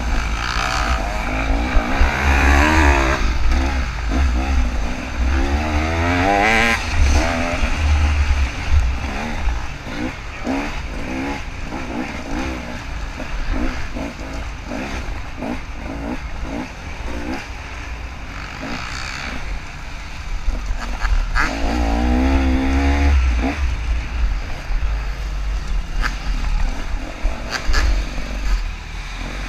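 KTM 300 two-stroke dirt bike engine running hard through the gears, its pitch climbing three times as the throttle is opened and dropping back between, with scattered sharp knocks.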